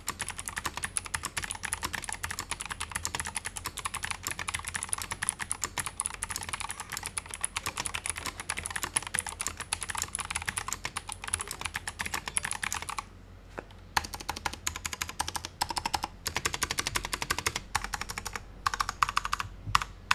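Fast typing on an ASUS ROG Strix Flare II Animate full-size mechanical keyboard with clicky ROG NX Blue switches, stock and untuned, making a dense stream of key clicks. About two-thirds of the way through the typing stops for a second, then resumes in shorter spells with brief pauses.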